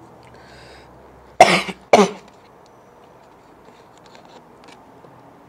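A man coughing twice in quick succession, the first cough slightly longer, from the smoke of a gravity-bong hit.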